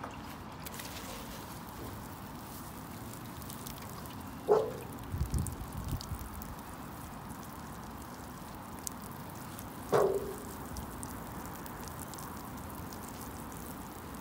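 Water pouring steadily onto freshly sown soil to water in the seeds, with two short plinks falling in pitch, about four and a half seconds in and again about ten seconds in.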